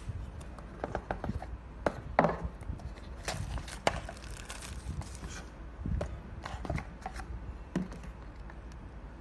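Hands unboxing a screen otoscope: scattered taps and knocks of the cardboard box and the plastic display unit, with a stretch of rustling about three to five seconds in.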